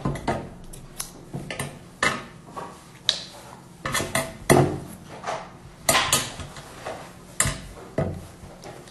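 A knife knocking and clicking against a glass tabletop: a string of irregular sharp taps, one or two a second.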